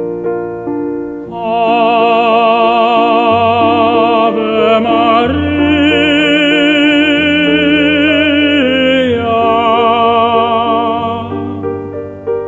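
Background music: an operatic voice singing long held notes with wide vibrato over sustained keyboard chords. The voice comes in about a second in and drops away near the end, leaving the chords.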